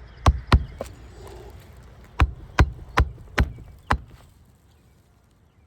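Roofing hammer driving nails into asphalt shingles: two sharp strikes, a short pause, then five more in a steady rhythm about two and a half a second.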